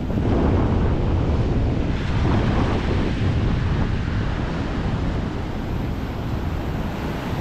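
Ocean surf breaking and washing up the beach at the water's edge, swelling just after the start. Wind rumbles on the microphone underneath.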